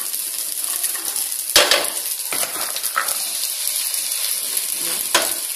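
Rice frying with a steady sizzle in a stainless steel pot as beans are spooned in and stirred with a wooden spatula. A few sharp knocks of the utensils against the pot, the loudest about a second and a half in.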